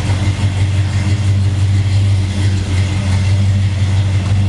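Plymouth 340 small-block V8 idling with a steady, deep rumble.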